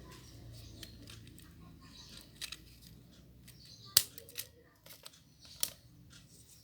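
Scissors and small craft materials being handled: a few scattered sharp snips and clicks, the loudest about four seconds in.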